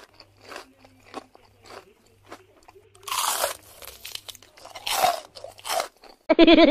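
Crisp panipuri shells crunching as people bite and chew them whole: a run of small crunches, then louder crunches about three seconds in, at five seconds and just before six. A voice starts near the end.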